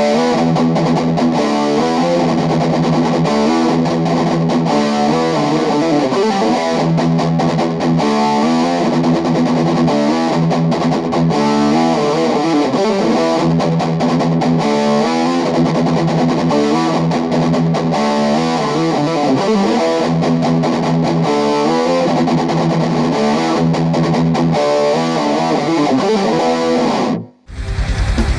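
Electric guitar played through a Cort MX15 practice combo amplifier: a continuous passage of notes and chords that cuts off abruptly about a second before the end.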